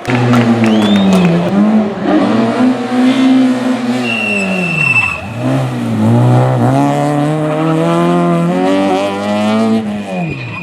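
Rally car engine being revved hard, its pitch climbing and falling several times, dropping sharply about five seconds in and then climbing again, with a short tyre squeal just before the drop.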